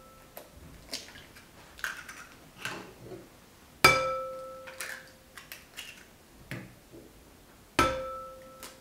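Eggs tapped against the rim of a porcelain mixing bowl and cracked open. Two sharp knocks, about 4 and 8 seconds in, each leave the bowl ringing briefly, with small clicks of shell and handling between them.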